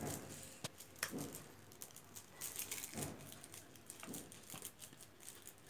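Faint crinkling and rustling of shiny foil gift wrap being handled as a present is unwrapped, on and off with a few light clicks.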